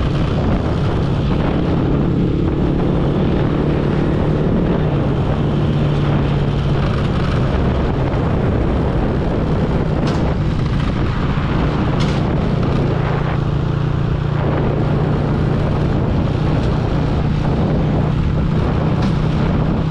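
Small motorbike engine running steadily at cruising speed, with a low, even drone under heavy wind rush on the microphone.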